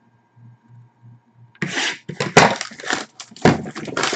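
A sealed hockey card box and its case packaging being handled. After a quiet start, a run of scraping and crinkling noises begins about a second and a half in.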